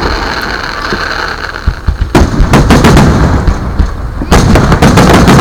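Fireworks going off in rapid, overlapping bangs and booms. The bangs come sparser and a little softer at first, grow heavy about two seconds in, and turn into a dense barrage near the end.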